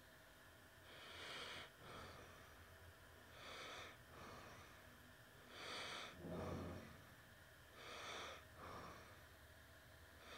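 Faint, regular breathing through the nose close to the microphone: about four breaths, each a longer hissing draw followed by a shorter, weaker one.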